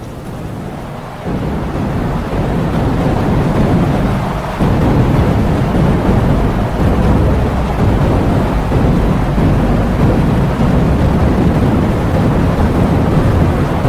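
Heavy rain with strong wind, a steady loud hiss over deep gusts in the low end. It fades in at the start and grows louder in steps, about a second in and again around four and a half seconds in.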